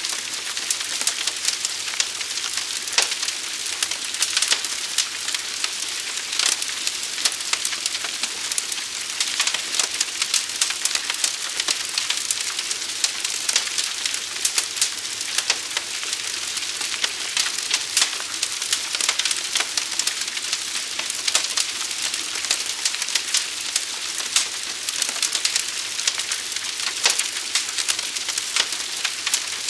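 A large fire burning: a steady hiss with dense, irregular crackling pops.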